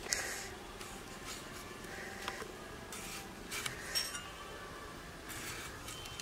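Soft clicks and small metallic clinks as ripe tomatoes are cut against a curved iron blade, with one brief ringing clink about four seconds in.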